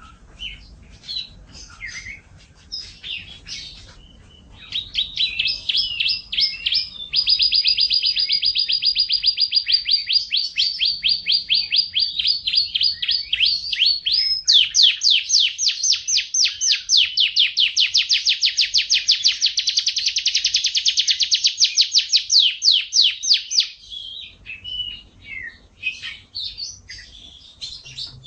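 An F1 canary singing: scattered short chirps, then long, rapid trills of repeated notes. The trill that starts about halfway through is louder and faster, and near the end the song breaks back into short, varied chirps.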